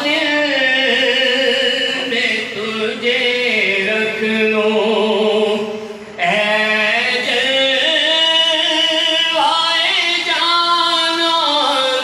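A man singing a naat, an Urdu devotional song, into a microphone in long drawn-out notes that bend and glide in pitch. There is a short break for breath about six seconds in.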